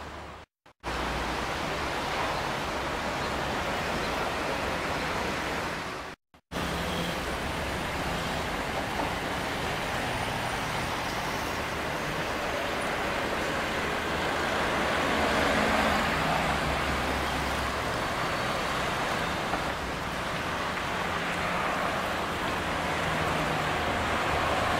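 Steady city street traffic noise, cars passing at a road junction, picked up by a camcorder microphone. The sound cuts out completely twice, briefly, about half a second in and about six seconds in, where the camcorder stops and restarts recording between shots.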